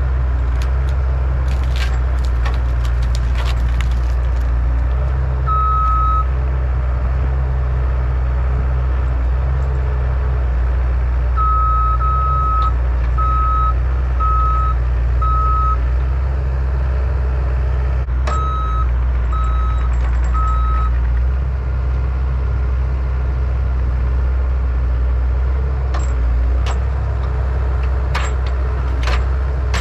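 Mini excavator's diesel engine running steadily under load while pushing, with its travel alarm giving high beeps in short runs as the machine tracks. Scattered sharp clicks and knocks sound over the engine.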